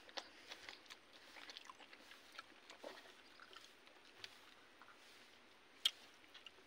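Faint eating sounds: chewing, and fingers picking apart fried fish over rice, with scattered small clicks and crunches and one sharp click near the end.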